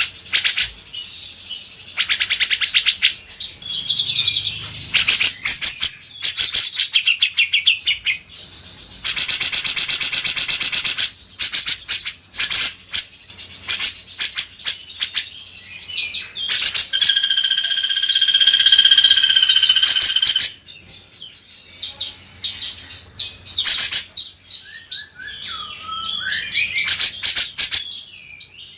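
Cucak jenggot and kinoi songbirds singing: fast chattering trills of rapidly repeated high notes, a long dense trill about a third of the way in, a sustained whistled tone in the middle, and sliding notes near the end.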